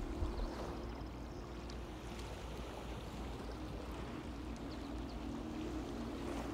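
Steady seaside ambience: a low rumble and soft hiss of wind and water with a faint steady hum underneath, and a brief low bump at the very start.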